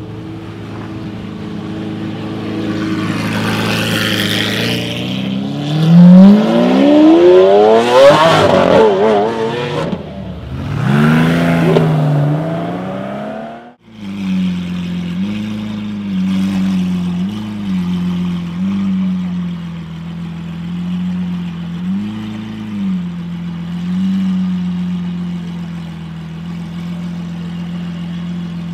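Lamborghini Aventador LP700-4's 6.5-litre naturally aspirated V12 through an Akrapovic exhaust, loud, pulling away with the engine note climbing, dropping briefly, then climbing again. After a sudden cut about halfway, the same V12 idles steadily with a few small throttle blips.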